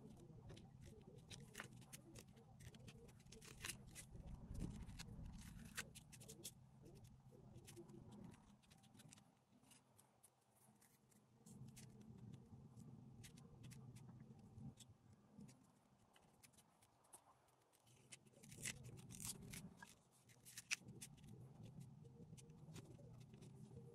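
Faint scratching and scattered small ticks of a sand-art board being worked by hand: a pointed stick picking at and peeling the adhesive backing, and coloured sand pressed onto the sticky paper.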